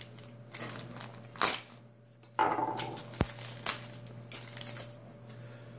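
Packaging being unwrapped by hand, crinkling and rustling in irregular bursts, with one sharp click about three seconds in.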